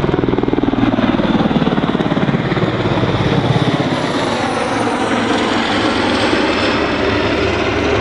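Denel Rooivalk attack helicopter flying past, its rotor beating heavily over its turbine noise. The beating is strongest in the first half and eases as it banks away overhead.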